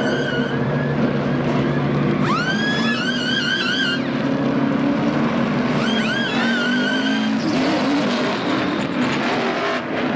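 Pneumatic impact wrenches on a NASCAR pit stop, in two bursts of about two seconds each: each whine rises quickly and then warbles as the lug nuts are run off and on. Under them is the steady drone of stock-car V8 engines.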